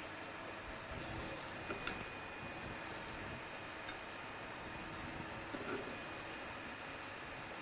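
A steady soft hiss, with a few faint clicks and taps of metal tongs on a plate as beef rolls are set down.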